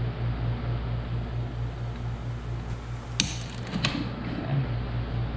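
Two sharp metallic clicks, about three and four seconds in, as wrenches are set on a connecting-rod bolt of a crankshaft standing upright on a stand, over a steady low hum.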